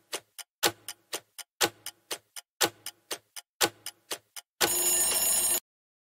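Countdown-timer sound effect: a clock-like ticking, one loud tick followed by a few fainter ones, repeating about once a second. Near the end it gives way to a one-second answer-reveal sound effect that cuts off suddenly.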